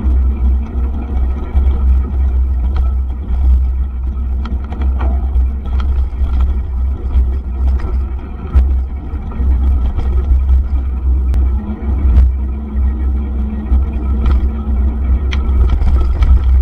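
Mountain bike riding fast over a dirt and gravel forest track, heard through an onboard camera: a loud, steady low rumble of wind buffeting and tyre noise, with scattered short clicks and rattles from the bike and stones.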